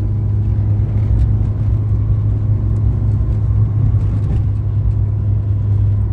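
Toyota AE86 heard from inside the cabin, cruising steadily at about 50 km/h: a constant low engine drone mixed with road noise, with no change in revs.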